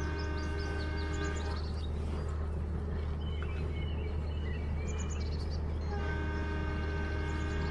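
Train horn sounding two long, steady blasts, one at the start and another from about six seconds in, over a steady low rumble of a running train.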